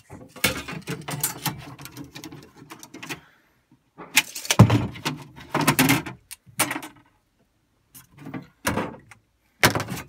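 Aluminium straps being handled and laid in a plastic kayak hull: metal clattering and scraping against the plastic, with scattered knocks. The loudest thump comes about four and a half seconds in.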